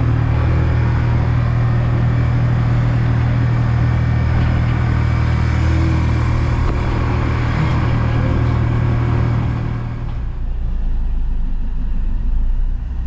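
Motor vehicle engine running steadily with road and wind noise, heard from on board. About ten seconds in the hiss thins out and the sound gets a little quieter.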